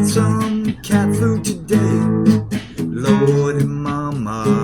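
Acoustic guitar strumming chords in a steady rhythm, an instrumental passage between the sung lines of a slow blues-rock song.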